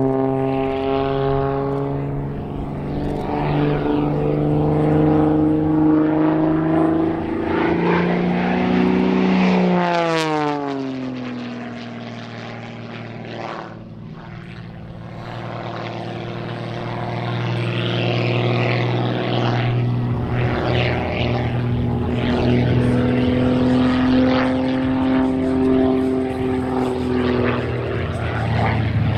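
MXS aerobatic plane's piston engine and propeller during a display flight. The note rises as the plane closes in, drops sharply as it passes about ten seconds in, then fades and comes back louder as it returns.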